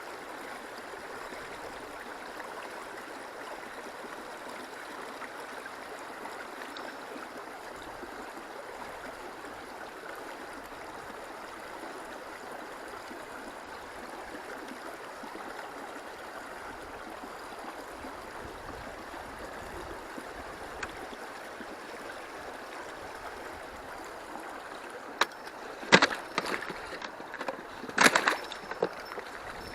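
Stream water running steadily over its bed. Near the end come a few sharp clicks and knocks.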